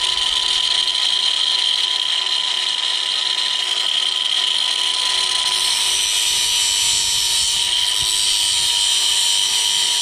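Small electric power tool running at a steady high speed, cutting notches into a short piece of 1.5-inch ABS plastic pipe. A continuous high whine, with rougher cutting noise added about halfway through.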